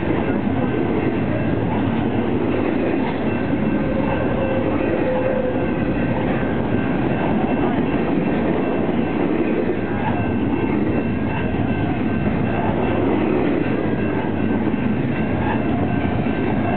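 Double-stack container freight train passing close by: a steady, unbroken noise of the cars' wheels running over the rails.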